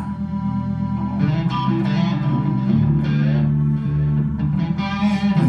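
Stratocaster-style electric guitar played through an amplifier in a rock instrumental passage, strumming and holding chords that change about every second.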